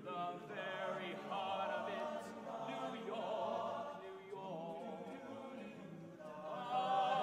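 Men's choir singing a cappella, a solo voice out in front of the ensemble; the singing swells louder near the end.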